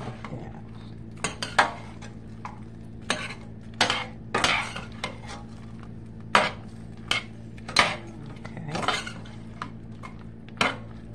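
A utensil scraping and clinking against a skillet at irregular intervals as chicken pieces are stirred and turned over in a sticky sauce, with no sizzle since the pan is off the heat.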